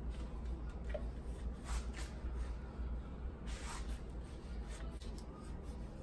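Damp cloth wiping and rubbing the plastic cyclone and dust bin of a Dyson V7 cordless vacuum, a few short, soft scrubbing strokes.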